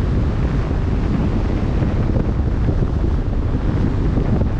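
Wind buffeting the microphone in a steady low rumble, over the wash of the open sea.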